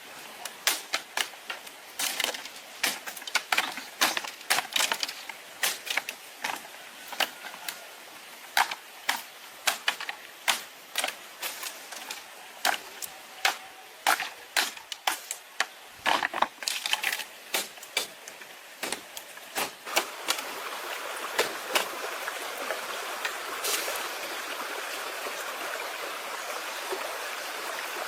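A run of irregular sharp knocks and clicks, several a second. About two-thirds of the way through they give way to a steady hiss.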